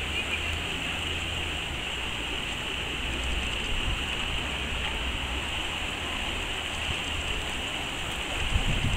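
Shallow river water rushing steadily over a rippling bed.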